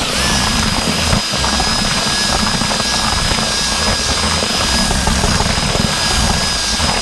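Electric drill driving a whisk-type groundbait mixer, running steadily at speed with a high motor whine as it churns dry powdered groundbait and earth in a plastic bucket.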